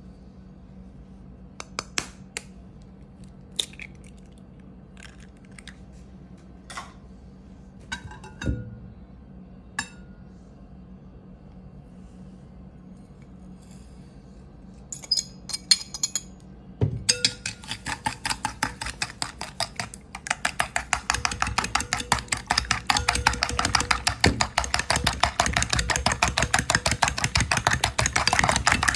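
Scattered clinks and taps of a ceramic plate and a glass bowl being set down and handled, then, a little past halfway, a metal fork beating egg against a ceramic plate in rapid, steady clicking strokes that grow louder.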